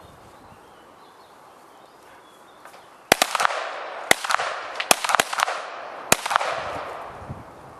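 Several pistols fired at once by competing shooters: a ragged series of sharp shots, about eight, beginning about three seconds in and spread over three seconds, each followed by a short echo.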